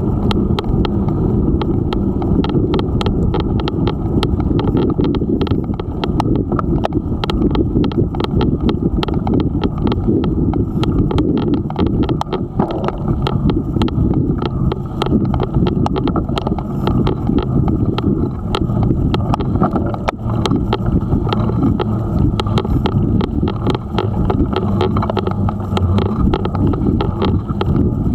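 Steady low rumble of wind on the microphone and tyres on a rough paved lane while riding a bicycle, with many small clicks and rattles from the bumps.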